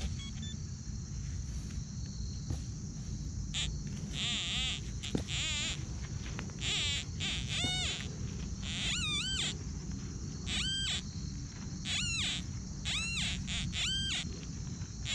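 Metal-detector target tones as a pinpointer probe is worked into a dig hole. There are warbling electronic tones a few seconds in, then from about halfway short tones, each rising and falling in pitch, about one a second, over a steady high hiss.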